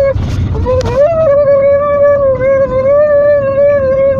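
A person's voice holding a steady, fairly high note as a weird noise. It breaks off briefly in the first second with a noisy rush, then comes back with a slight upward slide and holds on, over a low rumble.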